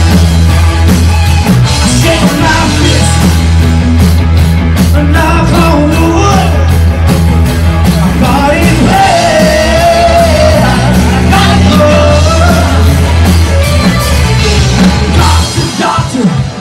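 Live rock band playing loud, with electric guitars, bass guitar and keyboard, and a male singer singing. The bass and drums drop away briefly near the end.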